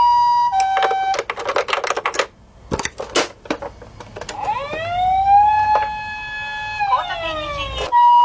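Toy ambulance's electronic siren: a short burst of two-tone hi-lo, then plastic clicks and rattles as the toy is handled. About four and a half seconds in, a single siren tone rises, holds steady for about two seconds and glides back down.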